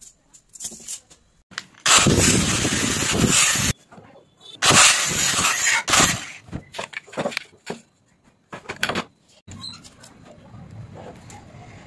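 Angle grinder with a cutting disc cutting through PVC pipe in two loud bursts, each under two seconds, with light clicks of the pipes being handled afterwards.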